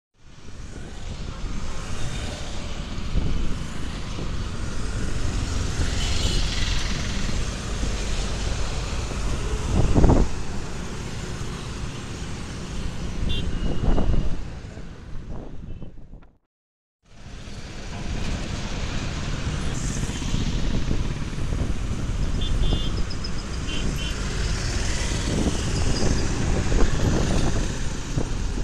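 Busy road traffic passing close by: motorcycles, scooters, autorickshaws, cars and buses. Two vehicles go by louder about a third and halfway through. The sound cuts out briefly a little past the middle, then the traffic noise resumes with a few short high beeps.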